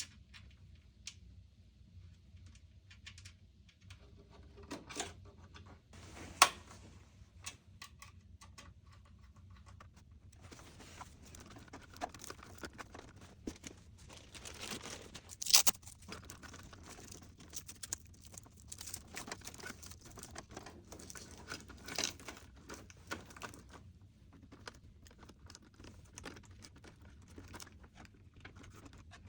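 Hands handling computer parts during a desktop PC build: scattered clicks and knocks, with a denser stretch of rustling and crinkling in the middle and a steady low hum beneath.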